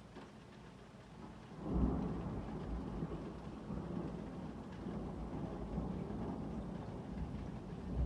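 Thunder: a low rumble that swells sharply about two seconds in and keeps rolling without a break.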